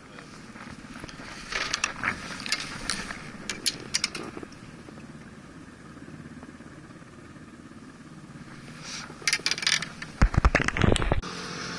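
Handling noise of fishing tackle as a fish is unhooked and the rod is worked: scattered sharp clicks and knocks over a steady low background rumble. Near the end comes a quick run of clicks, then a loud low rumble lasting about a second.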